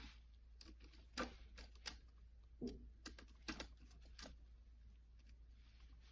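Faint, irregular small clicks and taps from hands handling a receptacle and its copper wires, most of them in the first four seconds.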